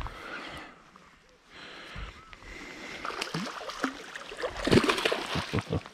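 Hooked bass thrashing and splashing at the water's surface beside the boat, the splashing starting after about a second and a half and loudest near the end.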